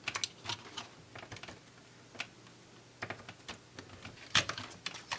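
Irregular small clicks and taps of a camcorder's plastic casing and parts being handled, with a couple of sharper knocks near the end.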